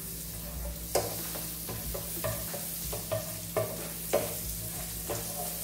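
Chopped garlic frying in melted margarine in a metal pan, sizzling while a slotted spoon stirs it, the spoon scraping and tapping against the pan several times at irregular intervals.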